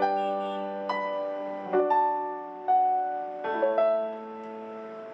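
Piano sound played from a MIDI keyboard controller: slow chords with a melody on top, struck about once a second and each left ringing into the next.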